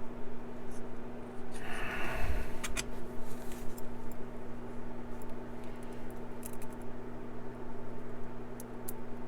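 Light clicks and scraping of small metal lock parts and tools being handled while a lock cylinder is taken apart, with a scrape and knock about two seconds in, over a steady electrical hum.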